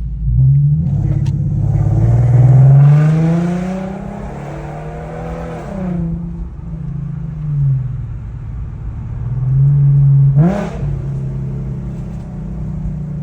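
Infiniti Q50 3.7's V6 with resonated test pipes in place of the catalytic converters, revving and settling back: a long rev peaking about three seconds in, a smaller one near the middle, and a quick sharp blip near the end before it drops back to a steady idle. Loud, with an open exhaust note.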